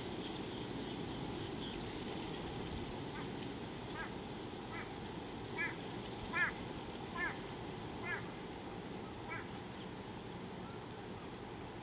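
Egyptian goose calling: a series of about eight short calls about a second apart, beginning a few seconds in, swelling to the loudest in the middle of the run and then fading out.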